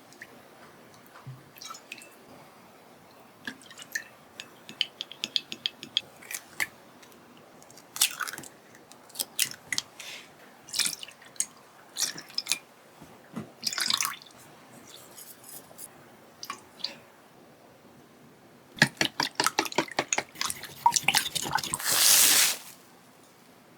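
Kitchen work at a sink: water dripping and splashing among scattered light clicks and knocks, with a quick run of ticks about five seconds in. A dense burst of clatter near the end leads into a short rush of water.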